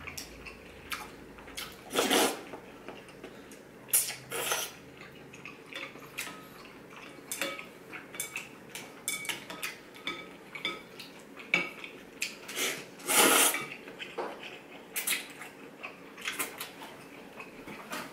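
Chopsticks and a ramen spoon clinking and scraping against a ceramic ramen bowl while eating, with a few louder slurps of noodles and broth, the loudest about thirteen seconds in.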